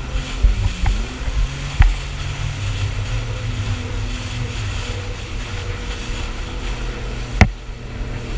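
Personal watercraft (jet ski) engine running steadily at speed, with rushing spray and wind noise on the mount-camera microphone. A few sharp knocks break through as the hull slaps the chop, the loudest near the end.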